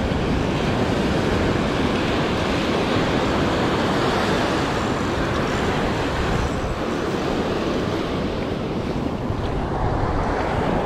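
Steady rush of surf washing up a sandy beach, with wind on the microphone.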